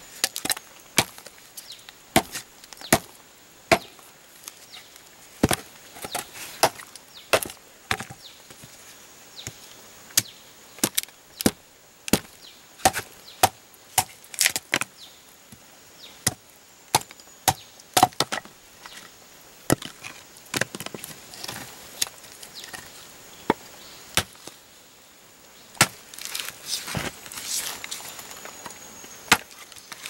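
Machete chopping into a wooden branch: sharp, irregular knocks of the blade biting the wood, about one or two a second, with a short spell of rustling near the end.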